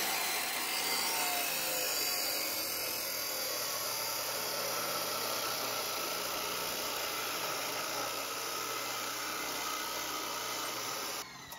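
Electric abrasive chop saw cutting through a steel plate: the motor runs and the cutoff wheel grinds steadily through the metal, then the sound cuts off suddenly near the end.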